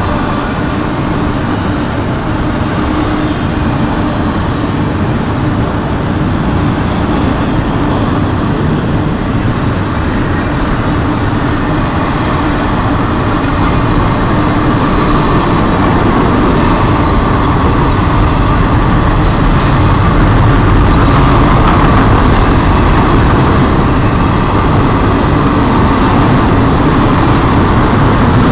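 Double-stack container freight train rolling past at close range: a steady, loud rumble of steel wheels on rail as the well cars go by, growing louder in the second half.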